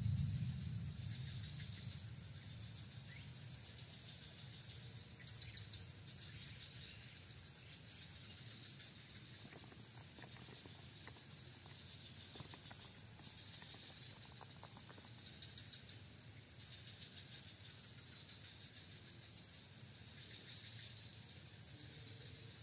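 Faint rural ambience of insects: a steady high-pitched trilling throughout, with recurring patches of rapid pulsed chirping and a few light clicks in the middle. A brief soft low rumble right at the start.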